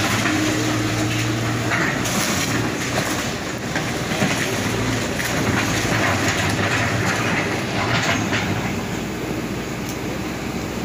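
Hyundai excavator demolishing a wood-frame apartment building: the diesel engine running steadily under continuous cracking and crunching of timber and debris as the arm tears into the structure.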